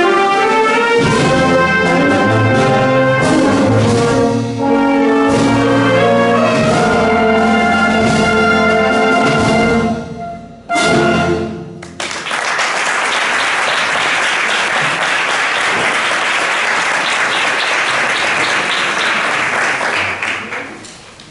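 Wind band of clarinets and brass playing, ending on a short final chord about eleven seconds in, followed by audience applause that fades out near the end.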